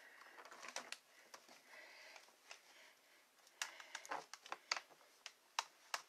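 Light clicks, taps and faint rustling from hands handling camera and lighting gear on a desk, with a quick run of clicks and knocks about three and a half seconds in and two sharper clicks near the end.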